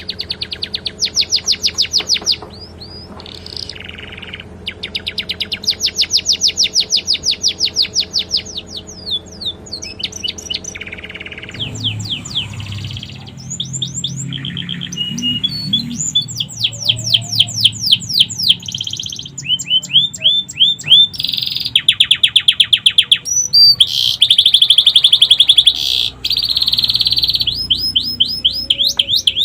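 Domestic canary singing with sikatan londo phrases worked into its song. It sings long, loud, rapid trills of fast repeated sweeping notes in phrases of a few seconds each, separated by short breaks.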